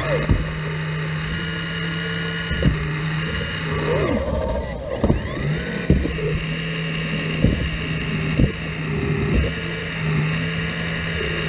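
Caterpillar 235 hydraulic excavator's diesel engine running steadily under work, with about half a dozen sharp knocks or clanks at irregular intervals.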